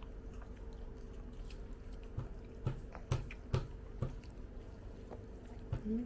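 Close-miked chewing and mouth smacks of someone eating: irregular soft clicks, several coming about half a second apart midway through. A faint steady hum runs underneath.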